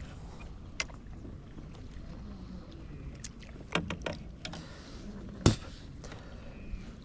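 Steady low rumble of a small boat on the water, with a few sharp knocks of gear against the hull; the loudest knock comes about two-thirds of the way through.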